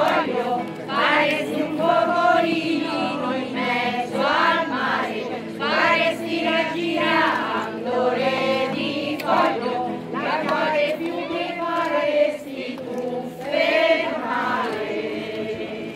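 Women's folk choir singing an Italian folk song together, accompanied by a strummed acoustic guitar.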